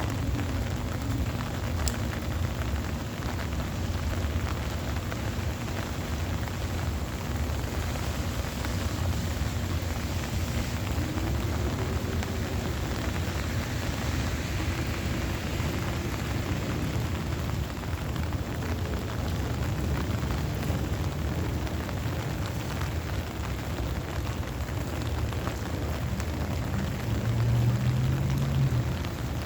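Heavy rain falling steadily, with a brief low rumble near the end.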